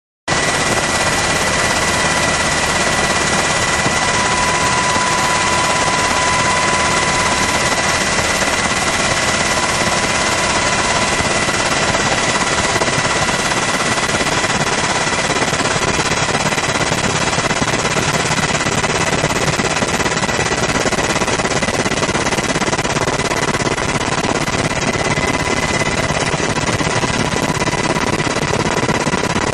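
Loud, steady noise of a helicopter in flight, heard from on board: rotor and turbine noise with a steady high whine. It cuts in abruptly at the start.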